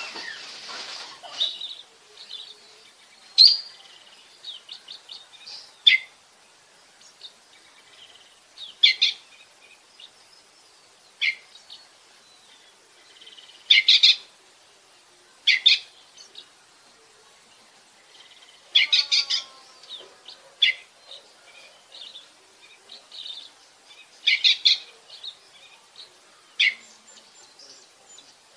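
Oriental magpie-robin singing: about ten short, sharp, high-pitched phrases a few seconds apart, with softer twittering notes in between.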